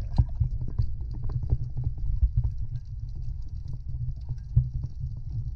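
Muffled underwater sound picked up through a camera's waterproof housing: a continuous low rumble of moving water, dotted with many irregular clicks and taps.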